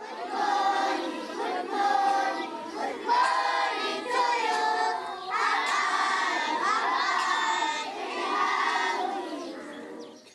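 A large group of schoolchildren singing together in unison, a song in short phrases, fading near the end.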